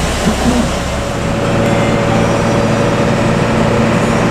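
Bus engine running, heard from inside the cabin over a hiss of road noise; about a second in its hum settles into a steady, slightly louder note.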